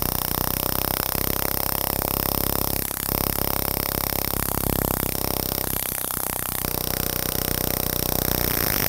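Jeweller's hammer handpiece buzzing as its tip strikes rapidly and continuously against a gold bezel, pushing the metal over a corundum gemstone to lock it in. It eases briefly about three seconds in.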